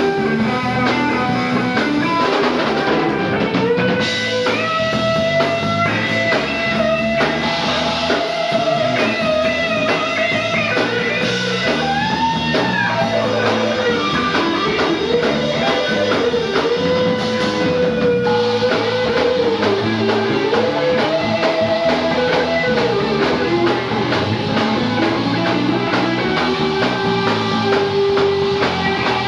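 A live rock band plays: an electric guitar carries a lead line of sliding, bending notes over a drum kit.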